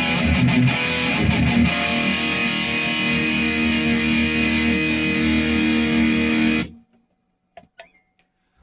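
Distorted electric guitar through a Futile Art FX Chainsaw EQ, an HM2-style EQ pedal, into a Marshall amp, with an old-school metal tone: a few short choppy strokes, then a chord left ringing for about five seconds that cuts off abruptly, followed by a couple of small clicks.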